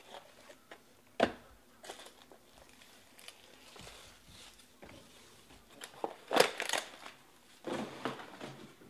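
Foil trading-card packs being handled and stacked, crinkling. There is a sharp knock about a second in and louder rustling bursts around six and eight seconds in.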